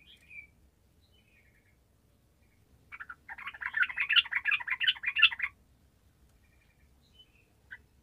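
Yellow-vented bulbul (trucukan) singing: a fast, dense burst of bubbling song notes for about two and a half seconds, starting about three seconds in. A few short single chirps come before it and near the end.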